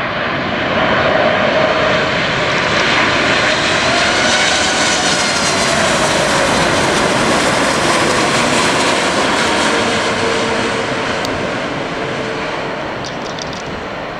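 Boeing 747 freighter's four turbofan engines passing by on landing approach: a loud jet roar with whining fan tones that bend down in pitch as it goes past, fading away over the last few seconds.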